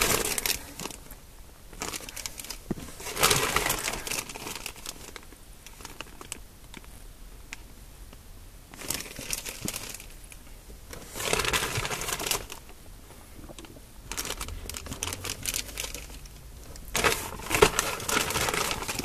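Clear plastic parts bags crinkling and rustling as they are handled and lifted out of a cardboard kit box, in several bursts a few seconds apart with quieter handling in between.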